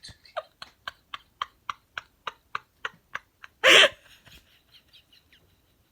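A person's voice making a quick run of short, even vocal bursts, about four a second. One loud outburst comes near the middle, then fainter short sounds.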